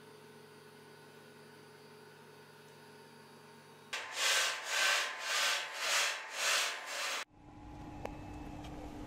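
Steady low electrical mains hum for the first four seconds. It gives way to six loud, evenly spaced scraping strokes, about two a second, of abrasive rubbing on a steel rail. The strokes cut off sharply, and a quieter low rumble follows.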